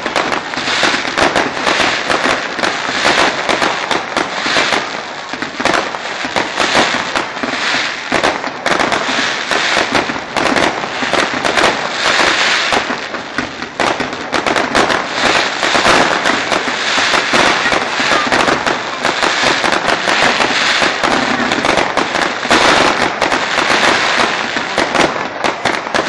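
Fireworks display: a dense, unbroken run of crackles and bangs as rockets launch and burst.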